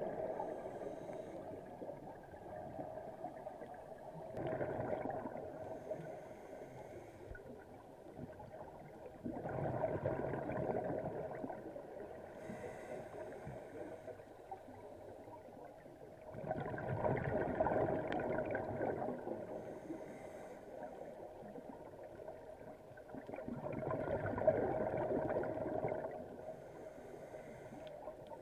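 Scuba diver breathing through a regulator, heard underwater: four bursts of exhaled bubbles about six to seven seconds apart, with a faint hiss of inhalation between them.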